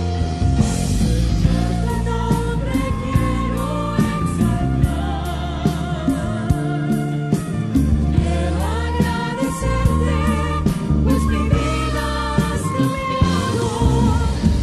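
Spanish-language Christian worship music: a choir singing over a band with a steady drum beat and bass.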